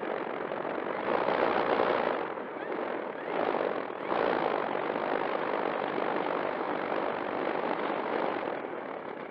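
E-flite Air Tractor 1.5 m electric RC plane's brushless motor and propeller running while taxiing, heard from an onboard microphone in the propeller wash. The throttle swells about a second in and again after three seconds, then eases off near the end.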